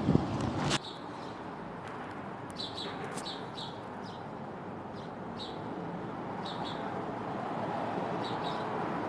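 A small bird chirping in short high notes, often in quick pairs, every second or so over a steady rush of wind, after a brief louder rush at the very start.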